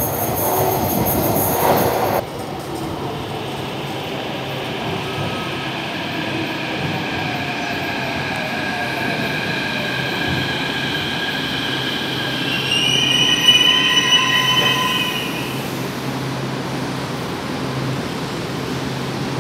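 São Paulo Metro Frota P train pulling into the station and braking to a stop: a rushing noise that stops abruptly about two seconds in, then a motor whine falling steadily in pitch as the train slows, with a brief brake squeal about thirteen to fifteen seconds in before it settles to a steady hum.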